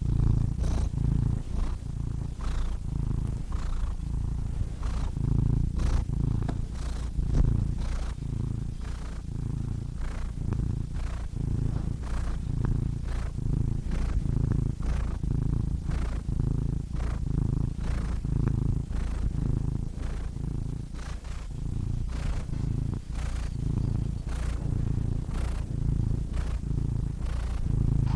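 Domestic cat purring steadily, the low rumble swelling and easing in a regular rhythm about once a second.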